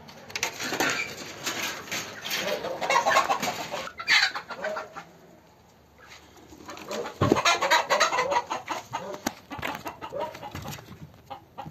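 Chickens clucking amid a scramble of rustling, scraping and knocks against wire and boards as a kitten is chased through a poultry pen; the sounds come in two busy spells with a lull between them.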